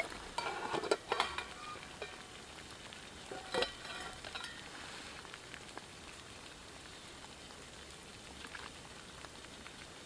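A knife scraping and clinking against a metal plate while sliced potatoes are pushed off it into a cooking pot, in a few short scrapes near the start and once more a few seconds in. Underneath is a steady sizzling hiss from the campfire and the steaming pot.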